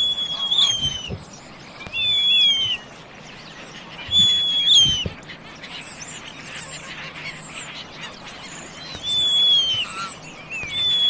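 Caspian tern calling: about five drawn-out, high calls, each under a second long and falling away at the end, repeated every couple of seconds with a longer pause in the middle.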